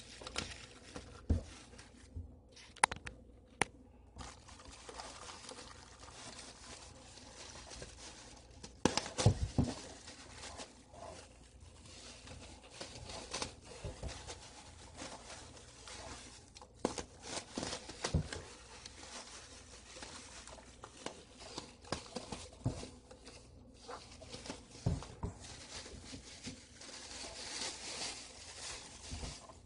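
Plastic wrapping around a bicycle frame crinkling and tearing as it is worked out of a cardboard box, with scattered knocks and scrapes. The loudest knocks come about nine seconds in.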